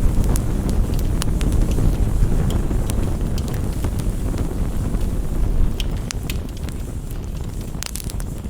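Campfire crackling: a steady low rumble with scattered sharp pops and snaps, a few coming in quick clusters.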